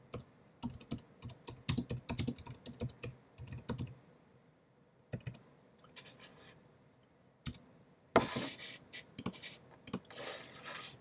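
Typing on a computer keyboard: a quick run of keystrokes for about four seconds, a pause with a couple of single clicks, then another dense burst of keystrokes near the end.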